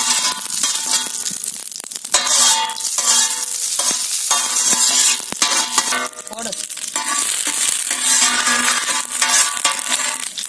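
Mustard seeds frying and sizzling in hot oil in a wide iron kadai, stirred with a metal ladle; curry leaves go into the oil near the end.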